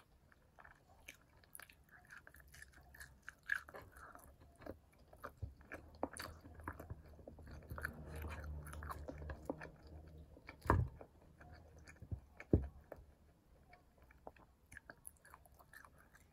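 Close-miked chewing and wet mouth sounds of someone eating chicken by hand, with many small smacks and clicks as the meat is pulled from the bone and chewed. Two sharp, loud clicks stand out, about eleven and twelve and a half seconds in.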